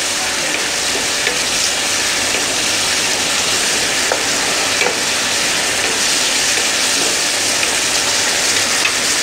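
Pork kidney slices in a white-wine sauce sizzling and bubbling in a frying pan over a gas flame, with a steady hiss as the wine cooks off. A spatula stirring through the pan adds occasional small scraping clicks.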